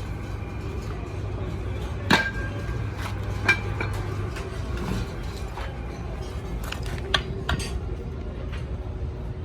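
Scattered sharp metallic taps and clinks of hand tools on metal brake-shoe parts, the loudest about two seconds in and several ringing briefly, over a steady low hum.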